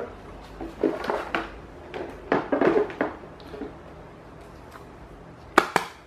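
Hard plastic clattering and knocking as the fan's front grille is lifted off its latches and handled. There are a few bursts in the first three seconds, then a single sharp click near the end.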